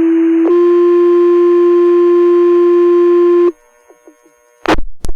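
Fire dispatch two-tone sequential paging tones over the radio, alerting the volunteer firefighters' pagers to a call. A steady tone ends about half a second in, and a slightly higher steady tone holds for about three seconds, then stops. Two sharp radio clicks follow near the end.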